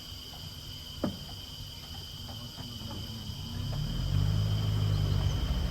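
Steady high-pitched drone of insects. A low engine hum swells in from about three and a half seconds in and becomes the loudest sound, and there is a single click about a second in.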